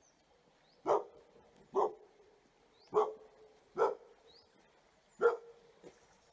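A dog barking: five loud, short barks at uneven intervals and a fainter sixth near the end, with faint bird chirps between them.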